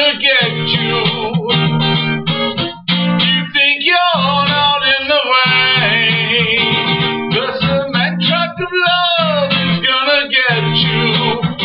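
Music: a strummed acoustic guitar with a sliding, bending melody line over it, and no lyrics.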